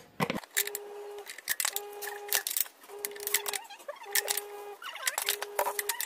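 Ratchet wrench with a socket turning a bolt at a scooter's engine mount: bursts of ratchet clicks about once a second, one burst per stroke of the handle. A short steady tone repeats between the bursts.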